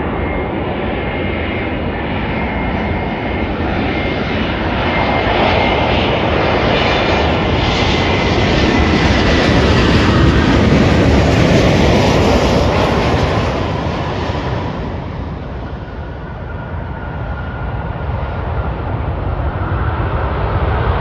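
Spirit Airlines Airbus A320-family jetliner landing: its jet engine noise builds as it comes in low and close, is loudest about ten to fourteen seconds in, fades, then swells again near the end with the jet on the runway.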